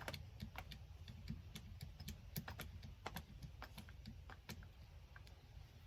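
Faint, irregular light clicks and taps from a hand hydraulic cable crimper being worked with a copper battery lug set in its jaws.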